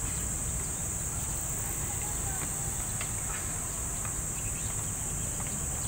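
A steady high-pitched insect drone over a low, constant outdoor rumble.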